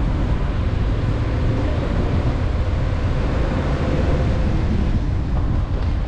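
Steady low rumble of a car driving through city streets, with wind buffeting the microphone.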